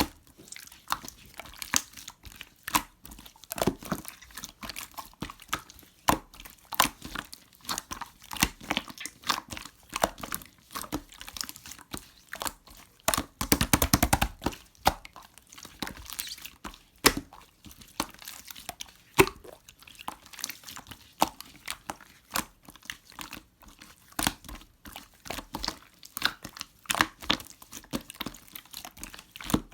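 Slime being squished and stretched by hand, giving irregular sharp clicks and crackles, with a dense run of crackling about thirteen seconds in.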